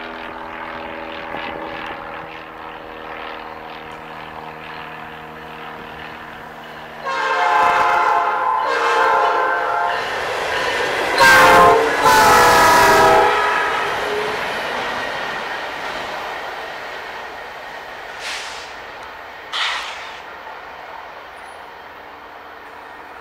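Locomotive air horn sounding its multi-note chord in a long, long, short, long sequence, the standard grade-crossing warning, the last blasts the loudest. The rumble of the passing train then fades, with two brief sharp sounds near the end.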